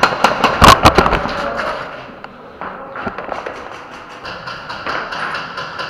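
Airsoft guns firing: a quick, irregular flurry of sharp shots and clatter in the first second or two, easing off into scattered clicks.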